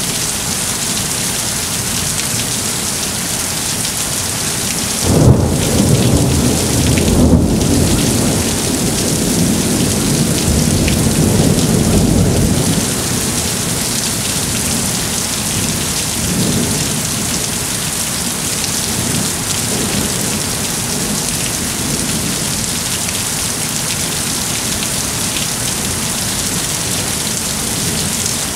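Monsoon thunderstorm: steady rain hissing, broken about five seconds in by a sharp crack of thunder and a second one about two seconds later. The cracks roll into a low rumble lasting several seconds, and fainter rumbles follow.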